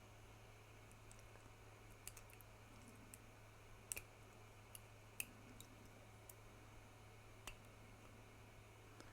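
Faint, scattered sharp clicks and snicks of an X-Acto knife trimming leftover brim off a 3D-printed plastic part, irregular, with the loudest two around the middle. A steady low hum runs underneath.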